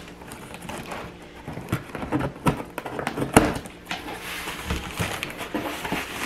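Large cardboard box being opened by hand: packing tape peeled from the cardboard and the flaps pulled open, with scattered scrapes and knocks and one sharp snap about halfway through.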